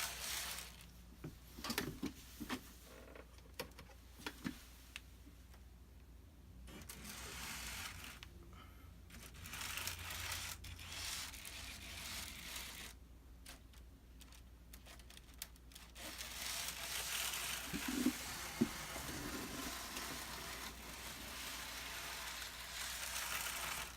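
Small N scale model tram motor and wheels running on plastic sectional track, a faint scraping hiss that starts and stops in stretches of a few seconds, with a few light clicks. The tram is being driven at full 12 volts and keeps stalling, so it runs only in short spurts.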